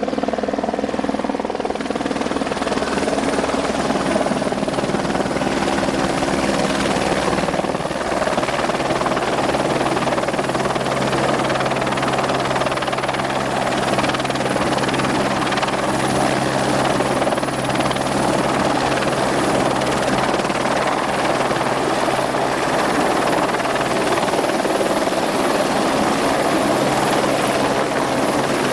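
Firefighting helicopter running loudly and steadily overhead, rotor and engine noise without a break; its pitch shifts about eight seconds in.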